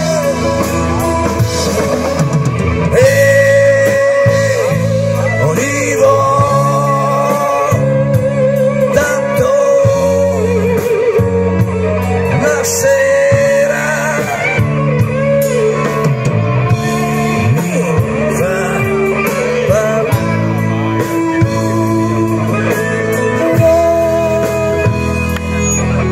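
Live blues-rock band playing, with guitar and bass and a lead line of bending, wavering notes.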